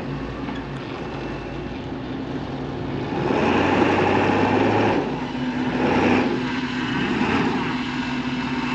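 Vehicle engine running steadily, getting louder about three seconds in and then easing off slightly.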